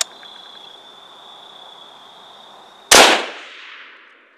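A single rifle shot fired at a whitetail buck, close and loud, its echo rolling off over about a second. It comes about three seconds in, over a steady high-pitched drone.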